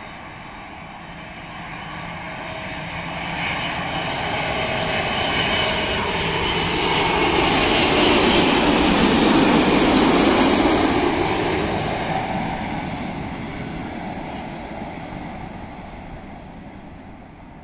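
Boeing 747-400 freighter on final approach flying low overhead, the jet noise of its four engines swelling as it nears, loudest about nine to ten seconds in as it passes, then fading away.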